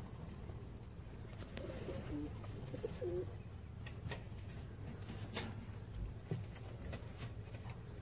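Low cooing of doves, with a few light clicks.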